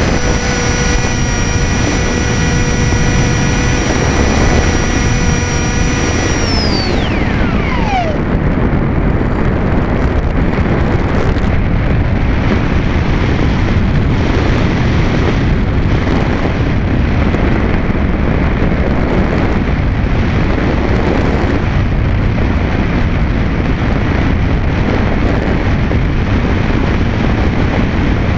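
Multiplex Easystar electric RC glider heard from its onboard camera: the electric motor and propeller whine at a steady pitch over rushing wind. About six and a half seconds in the throttle comes off and the whine falls steeply in pitch and dies away. After that there is only loud wind rush over the camera microphone as the plane glides.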